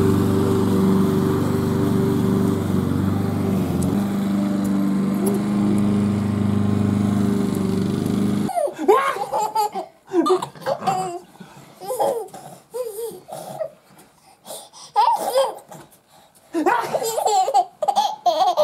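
A lawn mower engine running steadily. About halfway through it gives way abruptly to a baby giggling and laughing in short bursts.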